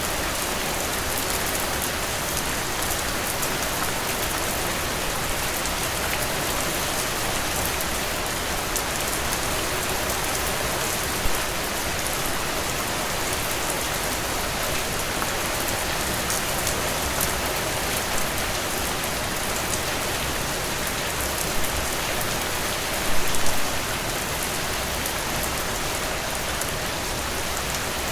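Heavy rain falling in a dense, steady downpour, with a few brief louder spatters: one about a third of the way in and a short cluster of them later on.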